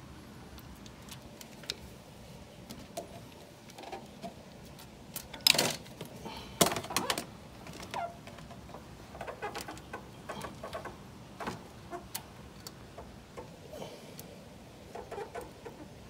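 Metal clicks and rattles from a timing chain on the cam sprockets of a 2ZZ engine and a crescent wrench on the camshaft, as the sprocket is turned to line up the chain's marked link. Two louder sharp clanks come about five and a half and seven seconds in.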